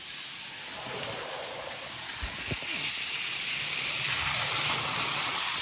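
A model train rolling along the track, a steady noisy running sound with a couple of small clicks a little over two seconds in, growing louder and brighter from about halfway.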